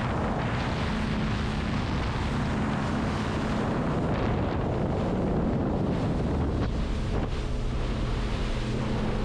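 Wind buffeting the microphone over a boat's motor running with a steady low hum.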